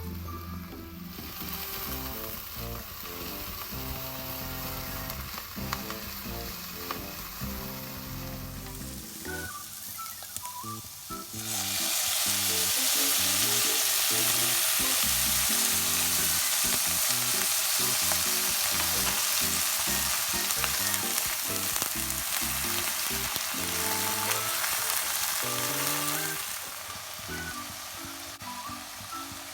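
Food sizzling loudly in a hot pan of oil, starting about a third of the way in and dying down near the end, over background music with a steady melody.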